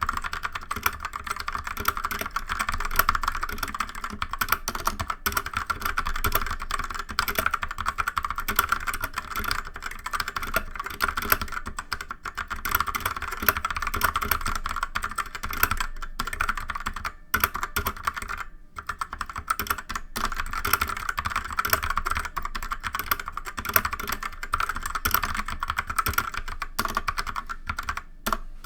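Fast, continuous typing on a DREVO Calibur V2 60% mechanical keyboard with Outemu Red switches: a dense clatter of keystrokes, broken by a few brief pauses.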